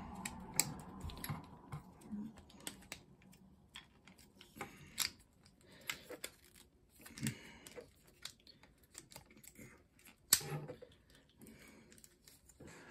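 Plastic joints and parts of a Transformers Kingdom Tigatron action figure clicking and knocking as it is twisted and folded by hand during its transformation. The clicks come irregularly, with a sharper click about ten seconds in.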